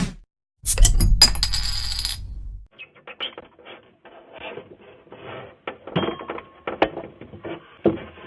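A sharp knock, then a loud metallic clatter that rings on for about a second and a half. After it comes a run of small irregular clicks and crackles.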